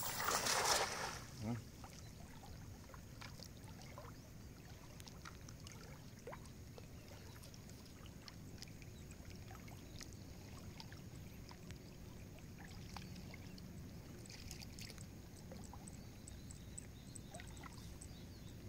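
A weighted cast net lands on the river surface with a splash in the first second. After that there is only a faint, steady background of flowing water, with a few small ticks and splashes.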